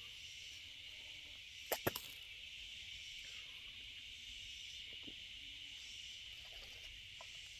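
Steady high-pitched buzz of insects in the woods, with two quick clicks close together about two seconds in as water is sipped through a hydration pack's bite valve.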